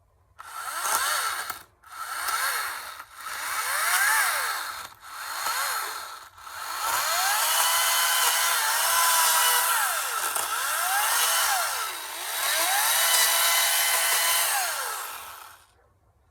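Ryobi 40-volt battery chainsaw with a 14-inch bar, its electric motor and chain whining as it is triggered in four short bursts, then run for about nine seconds with two brief dips. The pitch rises each time it spins up and falls as it runs down, and it stops near the end.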